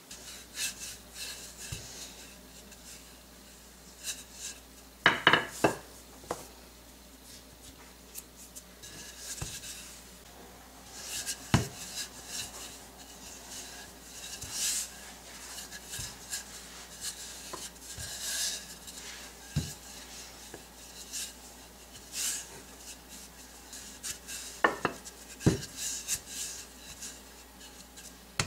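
Wooden rolling pin rolling a block of chilled puff pastry dough on a floured countertop: repeated rubbing strokes, with a few sharp knocks of the pin against the counter.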